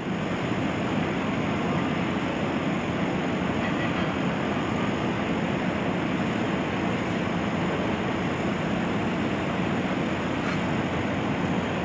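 Komatsu demolition excavator's diesel engine and hydraulics working steadily as it lifts a tangle of scrap metal, with only faint scraping from the debris.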